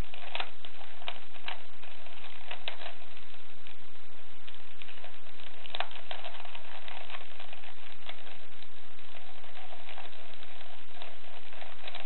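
Plastic clicking and clacking of a 3x3x3 Rubik's cube as its layers are turned quickly by hand: irregular runs of rapid clicks broken by short pauses, over a steady hiss.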